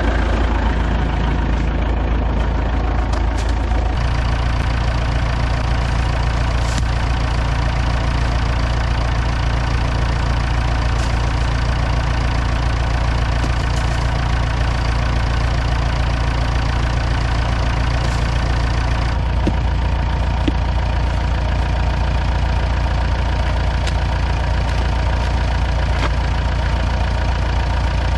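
Old diesel tractor engine idling steadily while it warms up, just after being restarted from running out of fuel.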